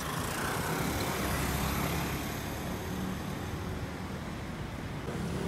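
Steady vehicle noise: a low rumble with a wide hiss above it.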